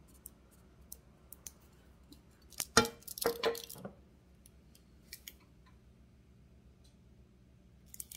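A glass sauce jar being handled and its metal screw lid twisted open, with scattered small clicks and taps from fingernails and the lid. There is a louder clatter about three seconds in that lasts about a second and has a brief ring to it.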